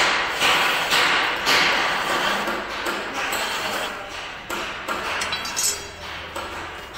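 Hammer blows on steel, about two a second with a ringing tail, four strikes over the first second and a half, then fading into quieter, irregular metal knocks and a low hum.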